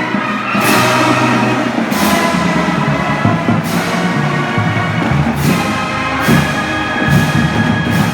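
Loud music with held chords and heavy drum hits about every one to two seconds.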